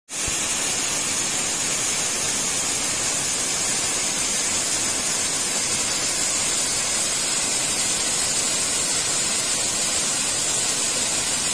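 Narrow two-tiered waterfall about 8 m high falling onto rocks: a steady, loud, even hiss and rush of falling water.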